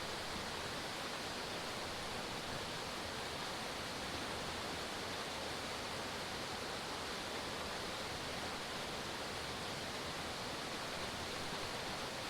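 Forest waterfall pouring: a steady, even rush of falling water with no breaks.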